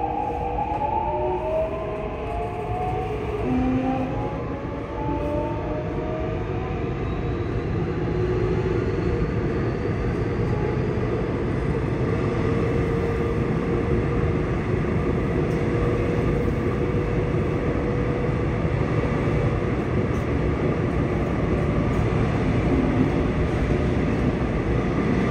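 Mitsubishi IGBT-VVVF inverter and traction motors of a Seoul Metro Line 6 train, heard from inside the car: several whining tones rise in pitch as the train accelerates over the first several seconds. The whine then gives way to steady running noise of wheels on rail.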